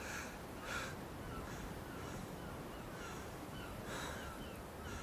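Wild birds calling: three short, harsh calls, two close together at the start and one about four seconds in, over a steady run of small, quick high chirps.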